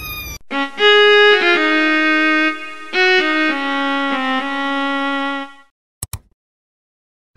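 Short intro music: a melody of a few held notes, fading out about five and a half seconds in. Just after it, two quick clicks, as of a mouse click on a subscribe button.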